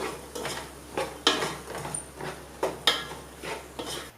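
A spoon scraping and knocking against a cooking pan while vegetables and masala are stirred, in short irregular clatters about two or three a second.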